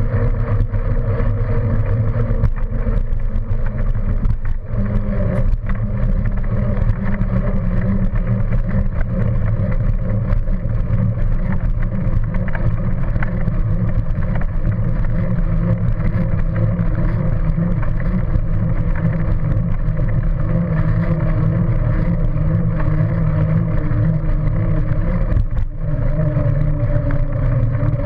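Steady loud rumble of a ride on a paved path: wind buffeting the camera microphone together with wheels rolling on the pavement, dropping out briefly twice.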